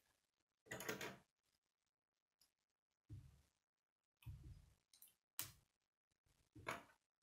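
K'nex plastic pieces being handled and snapped together: about five short clicks and knocks, spaced out, over near silence.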